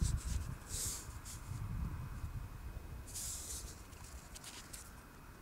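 Close handling noise from fingers moving a small coin over mesh fabric: faint clicks and rustling, with two short hisses, one about a second in and one a little after three seconds.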